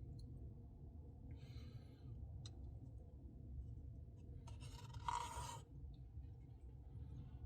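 A spoon scraping ice cream out of a Blizzard cup: two short scrapes, the second near five seconds in and louder, over a low steady hum.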